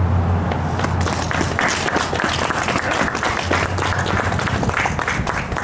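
Audience applauding: many hands clapping, starting about a second in and tapering off near the end.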